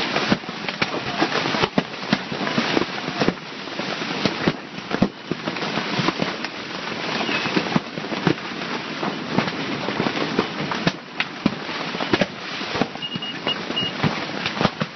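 Golf-ball-sized hail pounding a fishing bivvy's fabric: a dense, unbroken clatter of sharp impacts over a steady hiss.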